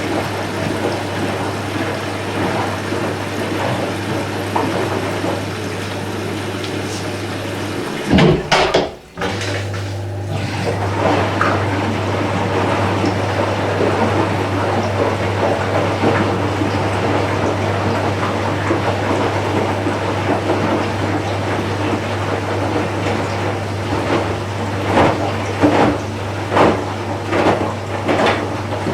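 Candy Smart Inverter front-loading washing machine running a wash cycle, water rushing and sloshing in the drum over a steady hum. There is a brief louder burst and a short break about eight seconds in, and a few soft knocks near the end.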